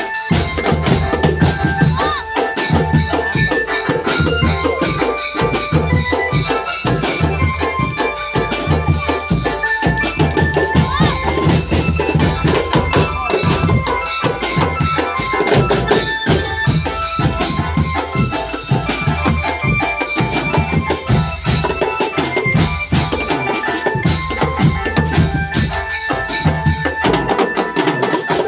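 A drum band playing: fast, dense drumming with cymbal or tambourine-like jingles and a melody line carried over the beat.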